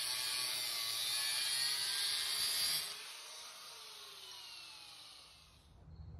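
Angle grinder with a thin cutoff wheel cutting through a 3/8-inch bronze rod held in a vise. About three seconds in the cut ends and the grinder is switched off, its whine falling in pitch and fading as the wheel spins down.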